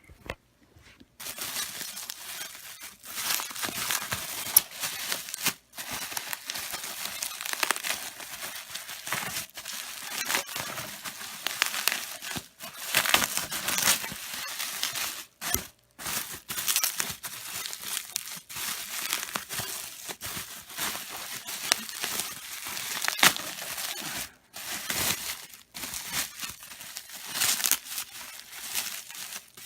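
Packing material being handled and torn open by hand: continuous crinkling, crumpling and tearing with many sharp crackles, broken by a few brief pauses.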